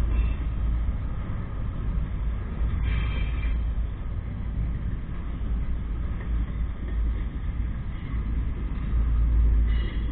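Slow-moving double-stack container train rolling past, its freight cars and wheels making a steady low rumble. A brief high-pitched squeal comes about three seconds in and again near the end.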